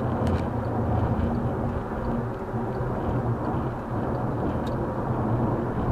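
Steady road and engine noise inside a car cruising at highway speed, a low drone of tyres and engine, with a couple of brief faint clicks.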